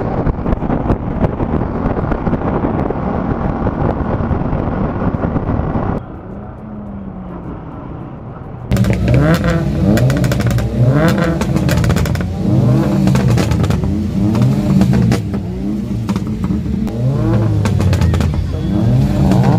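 Motorcycle riding at speed, its engine mixed with heavy wind noise on the rider's microphone. From about nine seconds in, car engines revving, rising and falling in pitch again and again.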